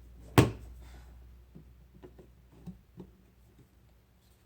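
A sharp knock about half a second in, then a few light taps and clicks: toy pieces being handled and set down on a child's play kitchen-workbench.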